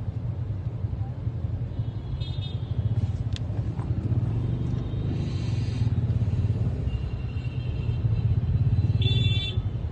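Steady low rumble of a car heard from inside its cabin. A couple of brief high-pitched tones sound over it, the clearest near the end.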